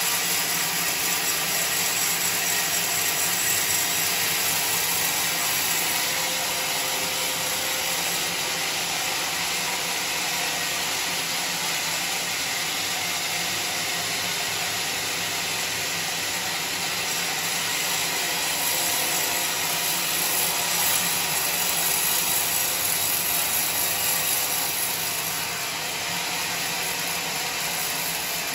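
Homemade horizontal band sawmill running, its steel band blade cutting lengthwise through coconut palm logs with a steady, even hissing rasp.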